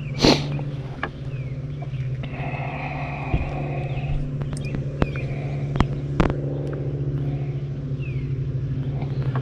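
A boat motor running steadily with a low hum, with a few sharp knocks scattered through. The loudest knock comes right at the start.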